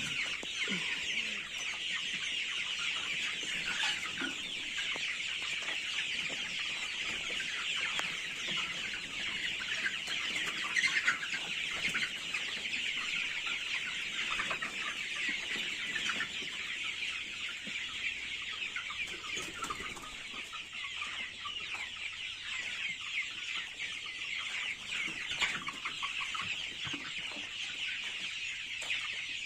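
A large flock of young country chickens, about 54 days old, chirping and clucking in a continuous dense chatter of many overlapping calls.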